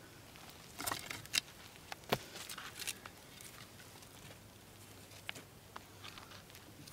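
Rustling and scattered sharp clicks and taps from paper and resin-filled egg-carton kindling being handled and laid in a fire pit, busiest between one and three seconds in, with a few lighter clicks later.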